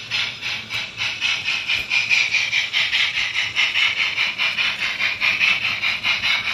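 An H0 model of a Deutsche Bundesbahn Class 23 steam locomotive puts out digital sound-decoder steam chuffs as it runs. They come at about five a second and grow louder over the first two seconds.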